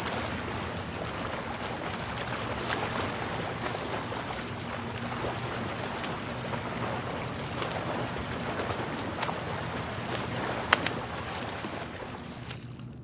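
Steady rushing of wind and water, with one sharp strike a little under 11 seconds in: a golf club hitting a ball out of shallow water.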